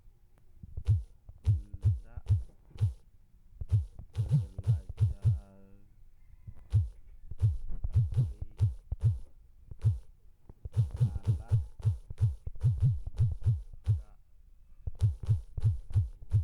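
Fingertips tapping on a smartphone touchscreen while typing text: quick irregular taps, several a second, in runs broken by short pauses.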